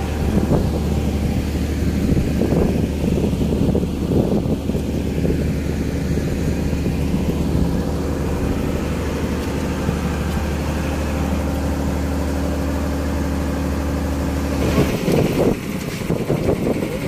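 A fishing boat's engine running steadily as the boat travels, a constant low hum. Near the end it cuts off abruptly and gives way to uneven knocks and clatter.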